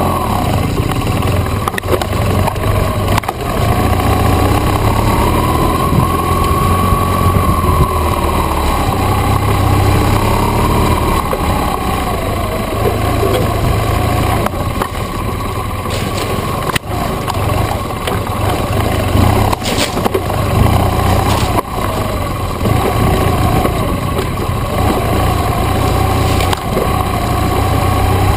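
BMW GS adventure motorcycle's engine running on a rough dirt trail, its pitch rising and falling with the throttle. Occasional sharp knocks come from the bike jolting over bumps.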